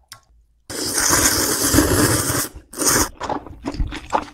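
A person slurping a mouthful of instant ramen noodles in soup for about two seconds, then a shorter second slurp, followed by soft chewing and wet mouth clicks.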